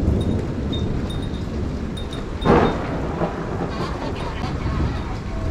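Thunder rumbling low and steady in a tropical thunderstorm, with a sudden louder burst about halfway through.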